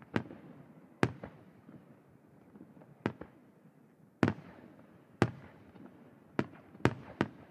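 Aerial firework shells bursting overhead: about eight sharp booms at irregular intervals, each trailing off in a rumbling echo.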